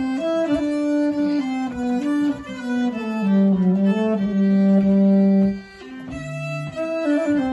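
Live acoustic music: a saxophone plays a slow melody of held notes over plucked string instruments. The melody steps down to a long low note in the middle, breaks off briefly, and starts a new phrase near the end.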